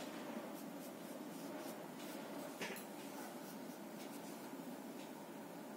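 10B graphite sketch pencil scratching over drawing paper in short shading strokes, faint and steady.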